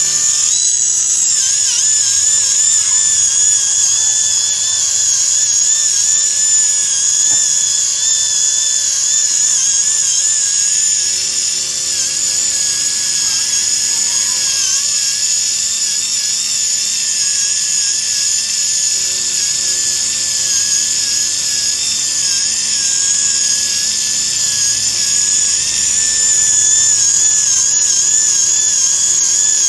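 High-pitched whine of a right-angle polishing handpiece spinning against the steel of an injection mold cavity, its pitch wavering slightly as it is pressed and moved over the surface.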